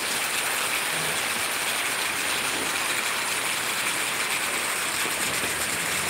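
Heavy rain falling: a steady, even hiss with no breaks.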